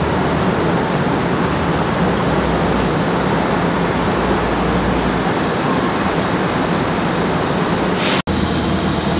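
Steady city street noise with a continuous low rumble. It drops out for an instant about eight seconds in.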